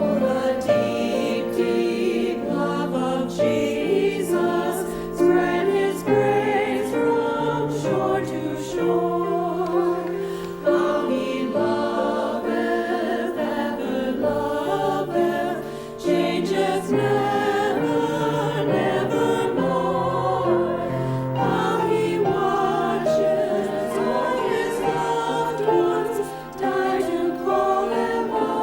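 Women's choir singing a slow hymn, with sustained low accompaniment beneath the voices.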